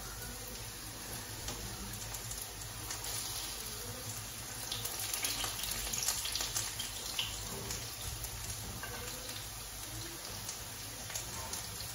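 Sigara böreği pastry rolls frying in hot oil: a steady sizzle with scattered crackles, a little louder in the middle.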